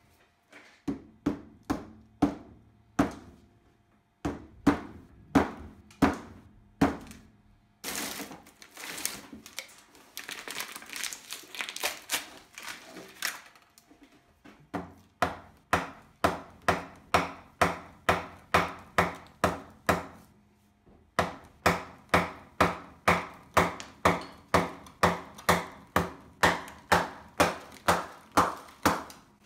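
Repeated hammer blows knocking at a wooden form box to break it off a block of cured home-made high-temperature cement. The blows come irregularly at first, then in long steady runs of about two a second, with a few seconds of scraping partway through.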